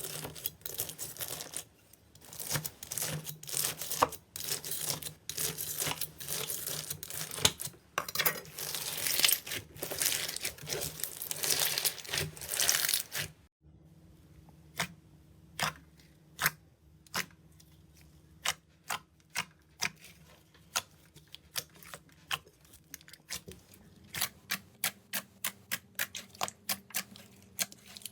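Slime being squeezed and poked by hand, giving a dense run of crackling and popping. After a sudden break about halfway, separate sharp clicks and pops follow, coming faster near the end.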